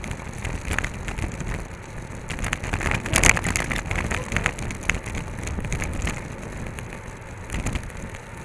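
Wind rumble and rattling crackle on a bike-mounted action camera riding in a road-race bunch, with tyres running on asphalt. The crackle peaks about three seconds in.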